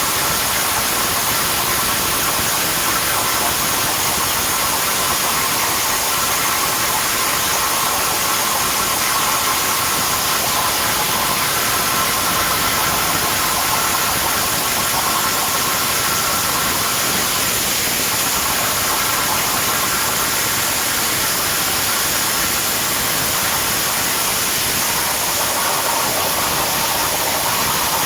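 CNC plasma torch cutting 10 mm S255 steel plate: a loud, steady hissing roar of the plasma arc and air jet, with faint tones that shift slightly near the end.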